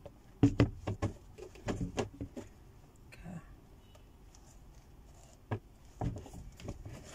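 Handling noise from a pair of new Puma sneakers being turned over and held together: a run of knocks and taps in the first two seconds or so, then a few scattered ones and a small cluster near the end.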